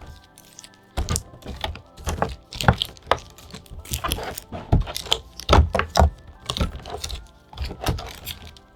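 Packaging of a trading card collection box being handled and opened by hand: a run of irregular clicks, taps and soft thuds, the heaviest thuds about five and a half to six seconds in.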